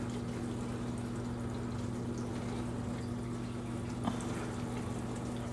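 Steady low hum with a faint hiss behind it, and a single small click about four seconds in.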